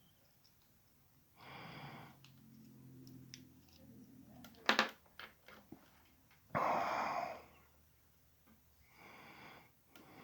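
A man breathing close to the microphone, three audible breaths, the middle one the loudest. There is a sharp click about halfway through and a few small ticks, from handling small parts.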